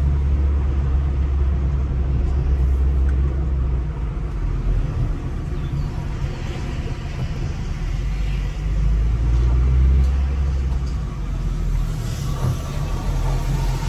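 Car engine and road rumble heard from inside a moving car's cabin: a low, steady drone that grows and fades in strength a few times.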